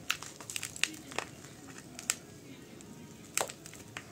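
Fingers crumbling old potting mix from a succulent's root ball, with scattered soft crackles and sharp clicks as clumps of soil and old roots break off and drop into a plastic basin. One click about three and a half seconds in is louder than the rest.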